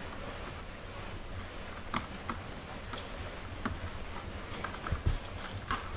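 Scattered soft clicks and light taps, roughly one a second, with a low thump about five seconds in. These are the mother cat's paws and body moving on the quilted pad beside her newborn kittens.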